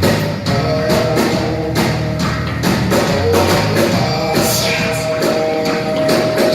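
Rock music with a steady drum beat and electric guitar, a long held note sounding through the second half.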